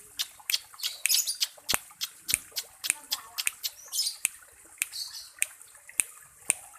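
Young lovebird calling: an irregular run of short sharp clicks and chirps, several a second, with a few bursts of higher twittering.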